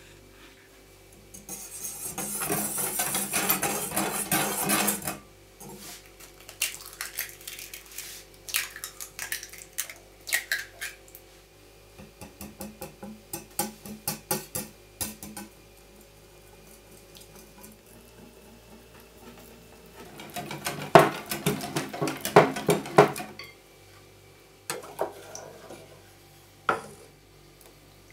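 Metal wire balloon whisk beating in a glass mixing bowl, scraping and clinking against the glass, as eggs are whisked into tapioca starch to make a batter. The whisking comes in several bouts, some rhythmic. The fastest and loudest bout comes about three-quarters of the way through.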